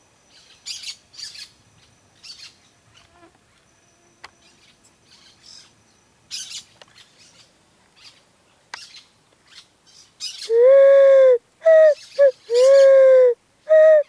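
Scattered faint, short high chirps of small birds, then from about ten seconds in a picazuro pigeon (asa-branca) cooing loudly: long, deep coos about a second each, alternating with pairs of short notes.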